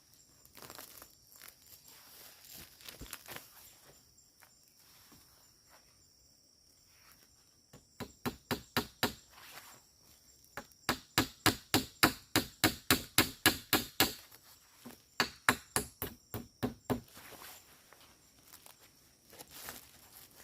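Rapid blows of a tool striking wood, in three quick runs of about four strikes a second. The middle run is the loudest, and fainter single knocks come before them.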